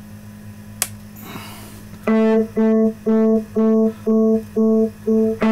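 Music from a JBL Boombox Bluetooth speaker: one pitched note repeated evenly about twice a second, starting about two seconds in. Before it comes a low steady hum and a single click.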